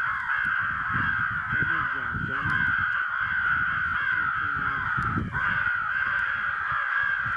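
Many crows cawing at once in a dense, unbroken chorus, with a brief lull about five seconds in.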